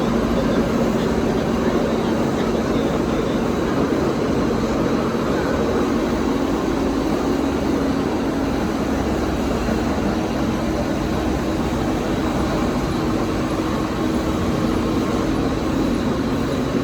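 Horizontal film slitting machine running steadily at speed: a constant mechanical whir with a low, even hum that does not change.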